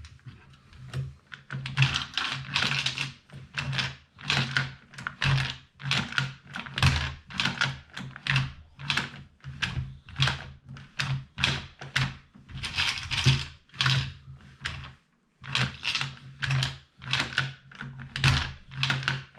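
Mag Pump 9mm magazine loader being pumped, a rattling plastic-and-metal clatter with each stroke as cartridges are pushed into the magazine, about one and a half strokes a second with a short break about two-thirds of the way through.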